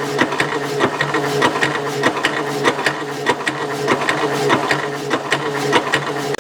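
Metalworking machine running with a steady hum, overlaid by rapid, irregular clicking and rattling throughout.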